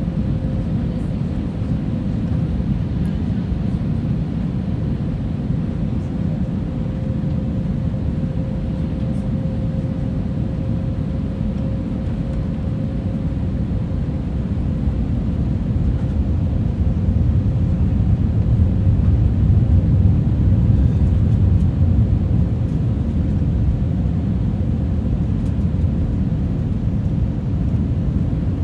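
Airbus A321neo cabin noise from a window seat: a steady low roar of the CFM LEAP-1A engines and rushing air, with a faint steady whine that fades out partway through. The roar swells louder for several seconds in the second half.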